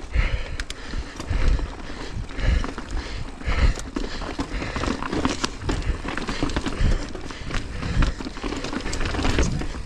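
Mountain bike riding over a rocky trail, heard from a helmet-mounted camera: tyres rolling and knocking over rock and the bike rattling, in irregular clicks and thumps over a constant low rumble.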